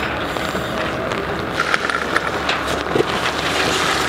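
Fire engine's pump engine running steadily, supplying water to the hose line, with a few short knocks and clatters of equipment around the middle.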